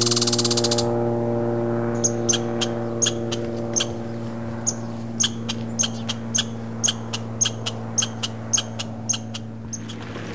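American red squirrel giving a run of short, sharp chirps, about twenty of them irregularly spaced, starting about two seconds in. Underneath, a low steady drone slowly fades away.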